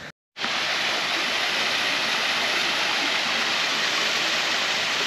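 Small rock waterfall pouring into a garden koi pond: a steady rush of splashing water, starting just after a brief silence.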